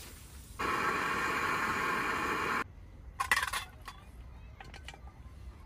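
A steady hiss for about two seconds that cuts off abruptly, then a few light clinks of seashells against a frying pan and a metal bowl as they are moved with chopsticks.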